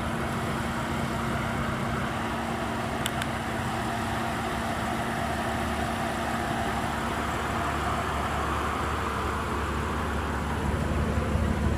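Steady background vehicle noise, a low rumble and hiss with a constant hum, and one faint click about three seconds in.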